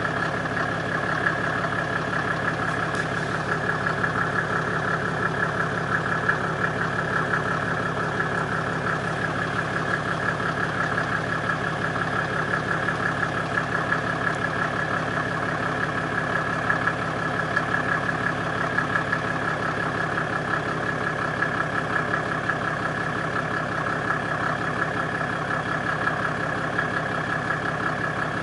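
Mercedes-Benz W126 300SDL's OM603 three-litre six-cylinder turbodiesel idling steadily at the tailpipe, still warming up after a cold start at −2 °C.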